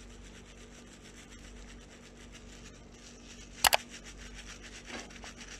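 Faint steady room noise with a sharp double click about two-thirds of the way through.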